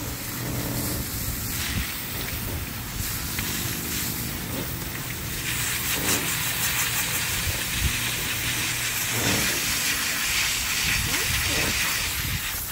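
Pressure hose spraying water into a gutted barracuda's belly cavity on a cleaning table, a steady hissing splatter that gets stronger about halfway through, flushing out the blood.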